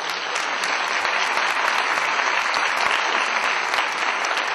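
A theatre audience applauding steadily, many hands clapping at once.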